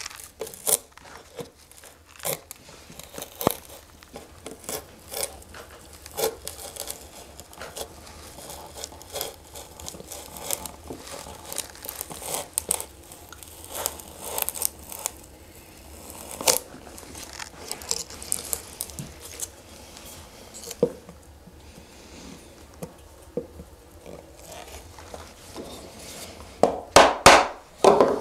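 A 3/4-inch bench chisel paring waste from a dado in a wooden board by hand, bevel down: many short, irregular slicing cuts as long shavings curl off the wood. A few sharper, louder knocks come near the end.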